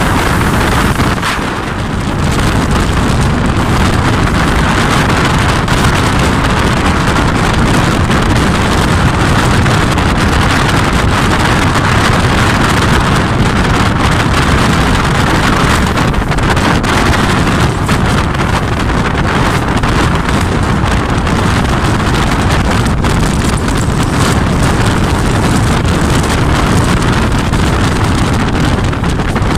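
A Sri Lanka Railways M8 diesel-electric train running at speed, with wind buffeting the microphone in a loud, steady rush that dips briefly about a second and a half in.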